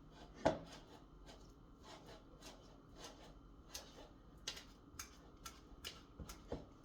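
A fork mashing bananas in a bowl: the fork clicks and taps against the bowl about twice a second, with soft squishing between, the first tap the loudest.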